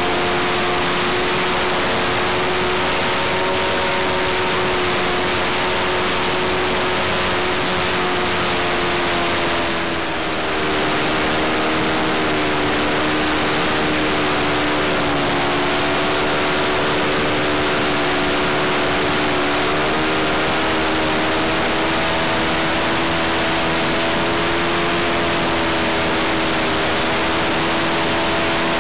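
O.S. 95V model aircraft engine running, heard on board with air rushing past. Its note drops out briefly about ten seconds in, then sags in pitch and recovers: the engine faltering before it quits.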